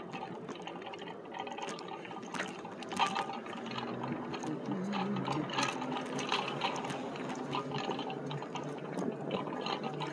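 Riding noise picked up by a phone mounted on an electric bike's handlebars: irregular clicks and rattles over a steady hiss of tyre and wind noise.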